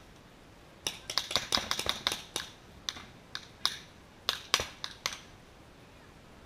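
Paintball markers firing: a quick string of about ten sharp pops, then single shots every half second or so until they stop about five seconds in.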